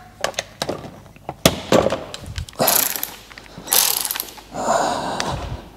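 Metal hand tools clinking on a workbench, then three bursts of socket-ratchet clicking, the loudest about halfway through.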